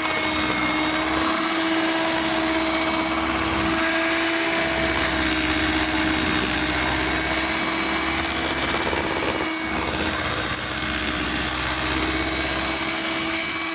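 Electric hand mixer running at one steady speed, its twin beaters whipping softened butter in a plastic bowl, with a constant motor whine over a loud whirring hiss.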